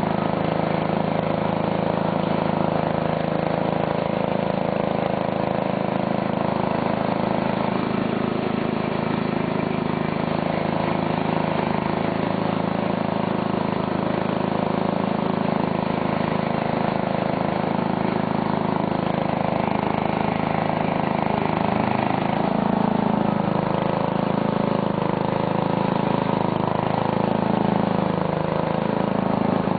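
The 9 hp Briggs & Stratton single-cylinder engine of an old Simplicity garden tractor, running steadily as the tractor drives along. Its note wavers a little in the last several seconds.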